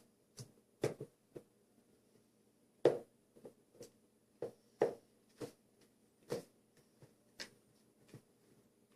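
A spoon clicking and knocking against a mixing container while slime ingredients are stirred: short, light taps at uneven spacing, about one a second.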